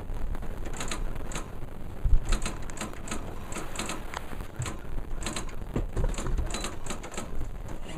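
Old typewriter being typed on: irregular key strikes, a few a second.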